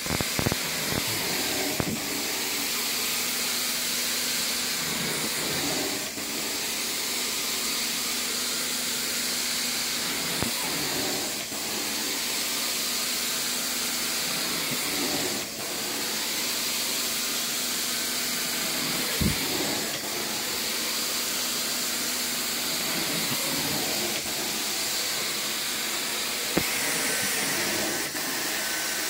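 Carpet-cleaning extraction wand sucking air and water from the carpet: a steady rushing hiss that dips briefly every few seconds as the wand is stroked across. A couple of sharp knocks in the second half.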